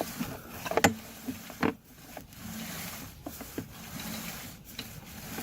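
Sewer inspection camera's push cable being pulled back out of the drain line: irregular clicks, knocks and rubbing.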